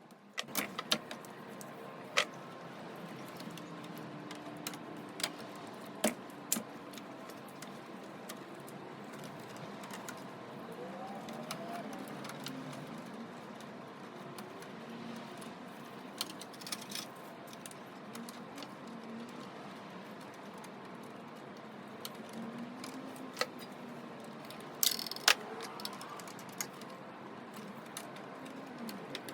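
Scattered sharp clicks and metallic clinks of tools and hardware being handled during electrical installation work, over a steady background hiss.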